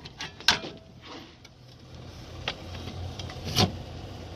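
A few light clicks and knocks from handling the B&M shifter and its newly bolted metal mounting plate, the loudest about three and a half seconds in, over a low steady hum.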